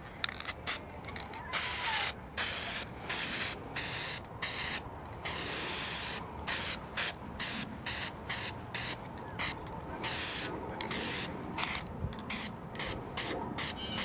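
Aerosol spray-paint can hissing in many short bursts, each under a second, with brief gaps between them, as a light dusting coat goes on.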